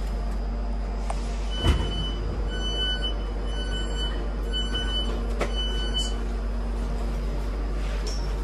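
Passenger door warning beeps on a Class 323 electric train: a single-pitched high beep repeating in short pulses for about three and a half seconds, just after a loud clunk from the door gear as the doors open at the platform. The train's steady low hum runs underneath.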